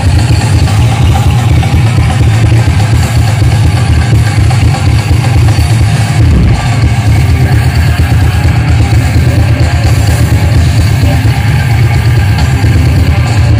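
Live rock band playing at full volume: pounding drum kit and distorted electric guitars with a heavy low end, dense and unbroken.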